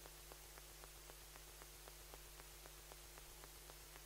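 Near silence: room tone with a faint steady electrical hum and faint, even ticks about four times a second.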